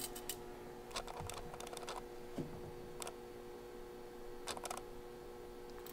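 Scattered light clicks and taps of hands handling a compound bow while its arrow rest and sight are being adjusted, a few irregular clicks a second or more apart with a close pair near the end. A steady faint hum runs underneath.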